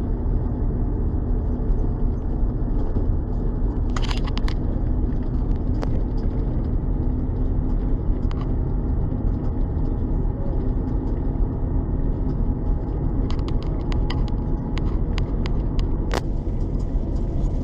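LAZ-699R bus's ZIL V8 petrol engine running steadily with a low, even rumble, with a few short clicks or rattles about four seconds in and again near the end.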